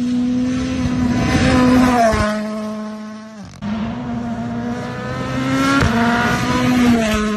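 Ford Puma Rally1 rally car's turbocharged four-cylinder engine at high revs on a gravel stage, swelling and fading as it comes and goes. Its pitch steps down twice, about two seconds in and near the end. The sound breaks off abruptly and restarts about three and a half seconds in.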